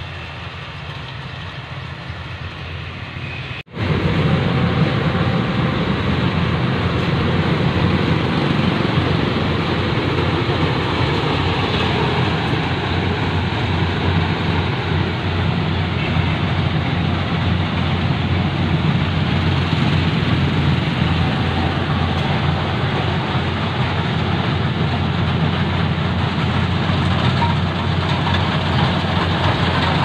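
Rice combine harvester running steadily as it cuts through the standing rice, its engine and machinery making a continuous mechanical din. A brief dropout comes just under four seconds in, after which it is louder.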